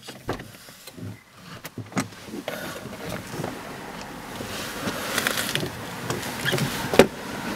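Handling noises inside a parked car as the front passenger gets out: scattered clicks and rustling, and outside street noise growing louder. One sharp knock about seven seconds in is the loudest sound.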